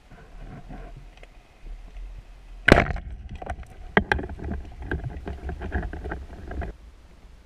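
Speargun fired underwater: one loud, sharp crack about two and a half seconds in, followed by several seconds of irregular clicks and knocks.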